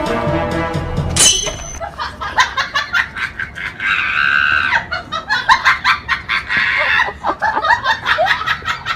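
Music stops about a second in, followed by a run of quick, high vocal sounds, one of them held for about a second near the middle.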